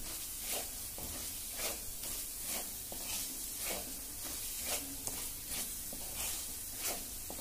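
Onion-garlic spice masala sizzling in hot oil in a clay pot while a wooden spatula stirs and scrapes it, in regular strokes about once a second over a steady sizzle: the spices being sautéed in oil on a low flame.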